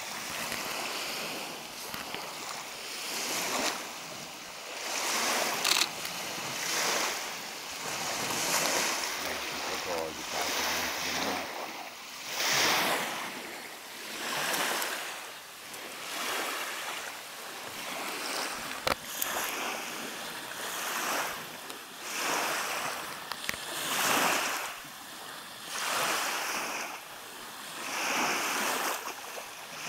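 Small lake waves washing onto a gravel shore, rising and falling in regular swells every two to three seconds, with a little wind.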